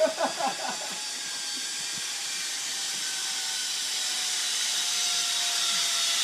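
Zip-line trolley running along the steel cable: a steady hiss with a faint whine that grows steadily louder. A few brief sounds come in the first second.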